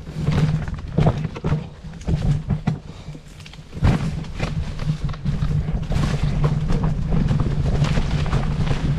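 A boat's engine drones steadily and low, with irregular sharp knocks over it. The drone drops back briefly about three seconds in, then returns.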